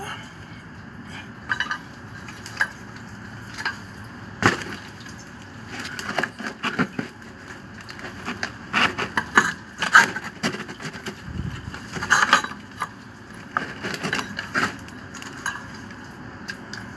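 Threaded metal pipe fittings being screwed into a peripheral water pump's port with a wrench. Irregular creaks, clicks and knocks come from the threads, the wrench jaws and the pump body.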